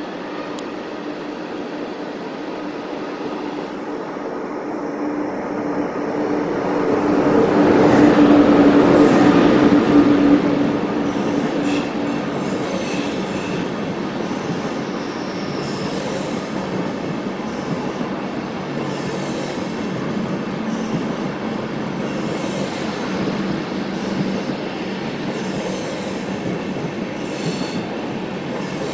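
Locomotive-hauled ÖBB Railjet passenger train pulling slowly into a platform. A steady low hum grows to its loudest as the locomotive passes about eight to ten seconds in. Then the coaches roll by with short, high wheel squeals.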